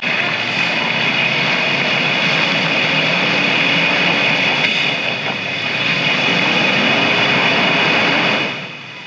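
A vehicle engine running hard under load, a steady drone with a high whine over it, that drops away after about eight and a half seconds.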